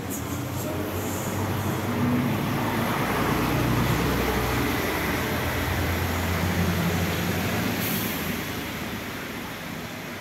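A bus drives past on the wet street. Its engine rumble and tyre hiss swell over the first couple of seconds, are loudest in the middle, and fade near the end.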